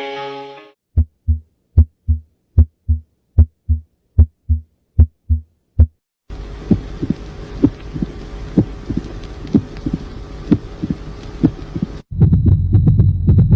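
Heart sounds heard through a stethoscope: an even lub-dub rhythm of paired low thumps, about 75 beats a minute. About six seconds in, a hissier recording of the heartbeat takes over, and near the end it switches to a louder, rumbling one.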